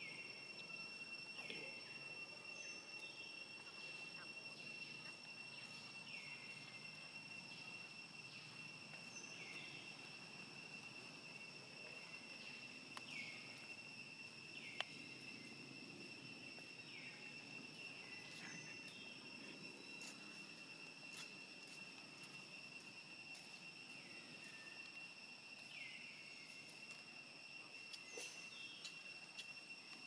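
Faint forest ambience: a steady high-pitched insect drone, with short calls falling in pitch repeating every one to three seconds, and one sharp click about fifteen seconds in.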